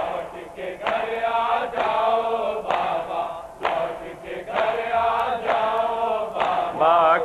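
Crowd of men chanting an Urdu noha lament together in a long drawn-out refrain, in time with rhythmic chest-beating (matam).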